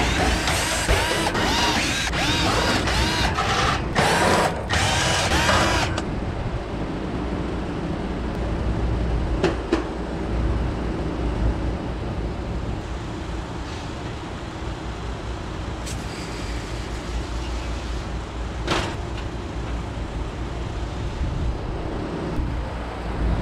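Cordless drill/driver backing out the screws of an air-conditioning condenser's top panel in four short runs over about the first six seconds, its motor revving up and down each time. After that there is a steady background noise with a few sharp knocks.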